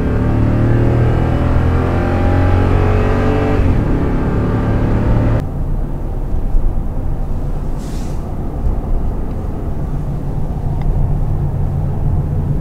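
Toyota Tundra's 5.7-litre V8 through an MPI Performance Series (Aggressive) exhaust, heard from inside the cab, pulling under throttle with a slowly rising note. About five and a half seconds in the throttle is lifted suddenly, and the engine settles to a low steady hum under road noise while cruising.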